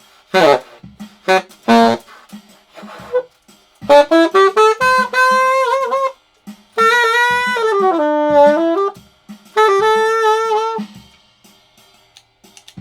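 Solo saxophone played unamplified in a bare garage with poor acoustics: a few short notes, then three longer phrases with sliding, bending pitch, the middle one dipping low and rising back.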